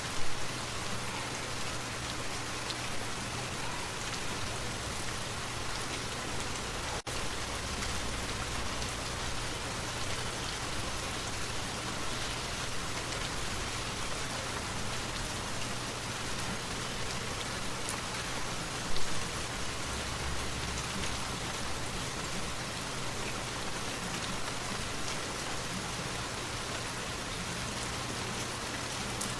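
Waterfall: a steady rush of falling water, with two brief louder bursts, one just after the start and one about two-thirds of the way through.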